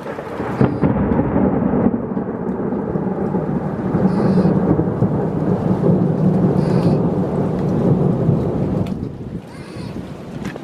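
A long roll of thunder rumbling for about eight seconds and dying away near the end, over steady rain.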